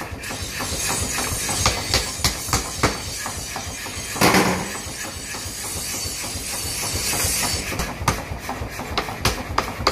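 Belt-driven mechanical power hammer running, with repeated irregular knocks of blows on a red-hot steel knife blank, coming thick and fast near the end. A brief loud burst of noise comes about four seconds in.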